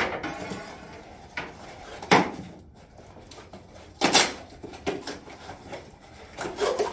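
Cardboard box of a joist repair kit being handled and unpacked on a table: a series of knocks, rustles and clatter, the loudest about two seconds in and again about four seconds in.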